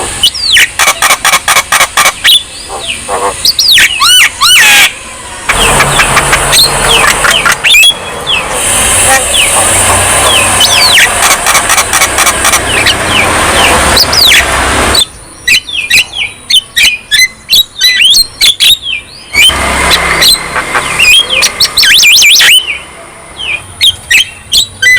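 Javan myna singing a fast, varied song: rapid sharp clicks, many rising and falling whistles, and longer harsh, noisy chattering stretches.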